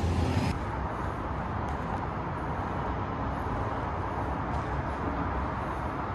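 Steady city traffic noise, a low rumble with a hiss, louder for the first half second.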